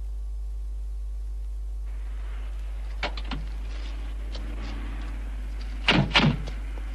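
A car door being handled: a steady low hum gives way to faint background hiss with a few clicks, then about six seconds in several sharp knocks as the door is opened.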